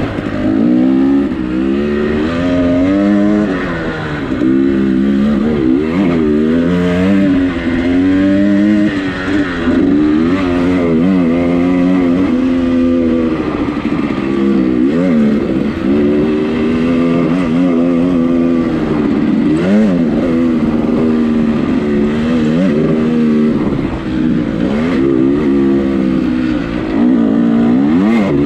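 Dirt bike engine being ridden hard, revving up and dropping back over and over as the throttle is worked, every second or two.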